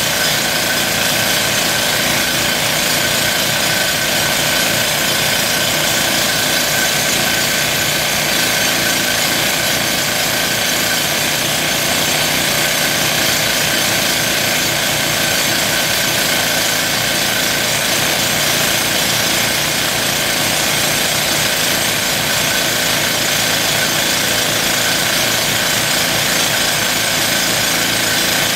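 Toku TS 55 air-powered rock drill in a Morath AK12 drill frame running steadily, hammering its bit down into rock without a break.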